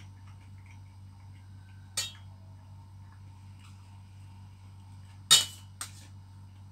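A metal spoon clinks against a stainless steel bowl three times while scooping food: once about two seconds in, then a louder clink followed quickly by a lighter one near the end.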